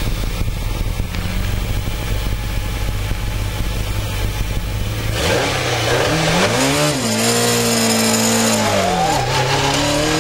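Rally car engine heard from inside the cabin, running steadily at low revs, then revving up about five seconds in as the car launches and accelerates, the pitch dropping twice at gear changes and climbing again.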